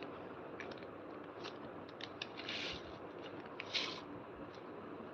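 Small clear plastic bag of letter sequins crinkling and rustling as it is handled and the sequins are tipped out, with scattered light clicks and two brief louder crackles, about two and a half and nearly four seconds in.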